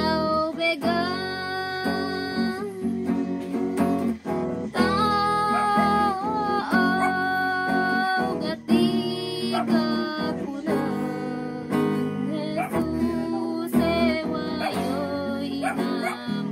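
Acoustic guitar strummed and plucked to accompany a voice singing long, gliding notes of a worship song about Jesus in Teduray.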